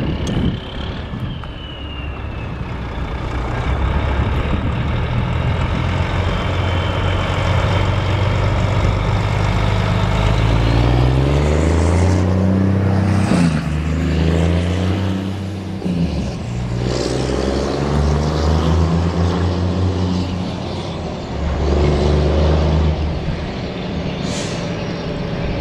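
A truck's engine pulling away and accelerating hard through the gears, its pitch climbing and dropping back with each shift as it passes close by, then easing off as it drives away. A few short hisses come between shifts.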